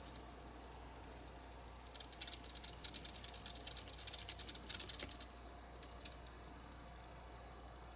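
A quick run of small clicks and light scratches lasting about three seconds, typical of hand work with small tools on a small metal model, over a faint steady hum. One more click follows.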